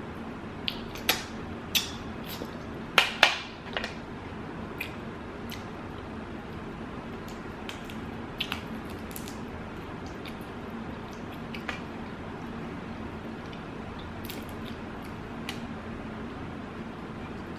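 Close-up eating sounds from a seafood boil: a run of sharp cracks, clicks and wet squishes in the first few seconds, loudest about three seconds in, then scattered quieter clicks and mouth sounds. A steady low hum runs underneath.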